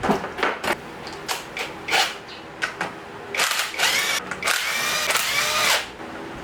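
A few short clicks and knocks of metal parts being handled. Then, from about halfway in, a power drill runs for about two and a half seconds, its whine dipping and rising in pitch as it backs out the screws holding the exhaust pipe's heat guard.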